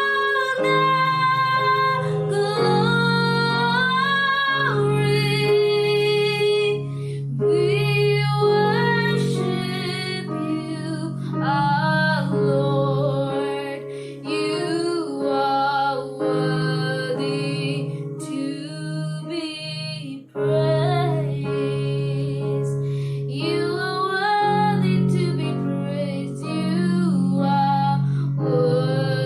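A woman singing a worship song with guitar accompaniment.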